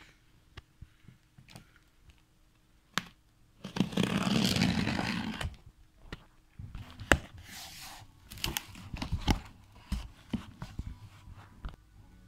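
Cardboard shipping carton being opened by hand: a long tearing rip about four seconds in, followed by cardboard flaps knocking, scraping and rustling.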